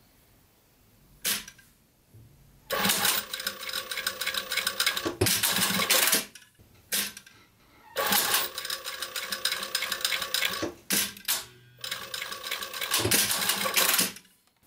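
Industrial sewing machine stitching fabric in three short runs of a few seconds each, stopping and starting, with single sharp clicks in the pauses between runs.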